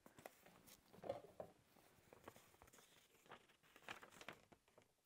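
Near silence with faint, scattered taps and paper rustles from a book and a paper note being handled.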